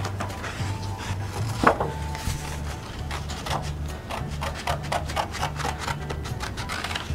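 Scissors cutting through construction paper: a run of short, irregular snips with paper rustling, one louder snip about a second and a half in.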